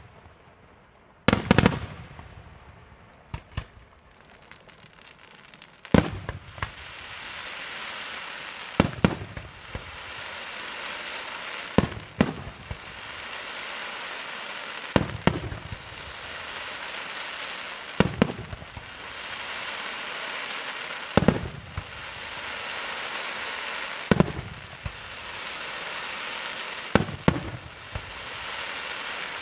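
Daytime fireworks display: loud shell bursts about every three seconds, often two in quick succession, with a steady hiss filling the gaps between them from about six seconds in.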